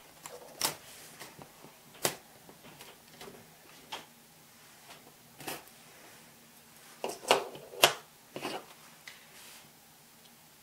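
Scattered sharp clicks and taps of small hobby tools and parts being handled and set down on a modelling workbench, irregularly spaced, the loudest two close together in the second half.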